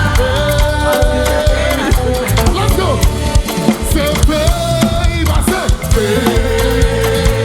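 Upbeat gospel worship music from a band, with drums and bass keeping a steady beat under sustained melody lines, with some voices singing.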